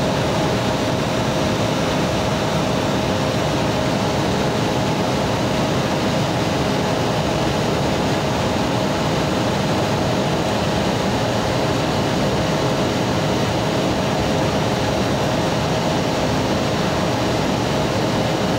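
Cabin noise of an Embraer 175 jet in its climb after takeoff: the GE CF34-8E turbofans and the rushing air make a steady, even hiss with one constant tone running through it.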